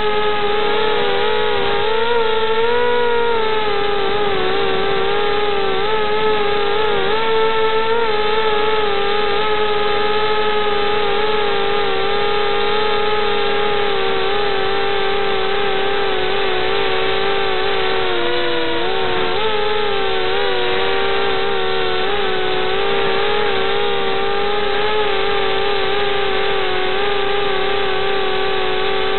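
Racing quadcopter's brushless motors and propellers whining steadily, recorded through its onboard camera. The pitch wavers with the throttle, dipping briefly about two seconds in and again around eighteen seconds in.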